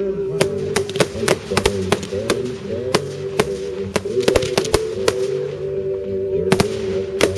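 Aerial fireworks exploding in a rapid, irregular string of sharp bangs, about two or three a second, over music with sustained notes playing underneath.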